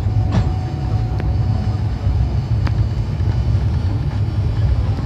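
Steady low rumble of a moving train, with a few sharp clicks, as a suburban electric local train passes close alongside.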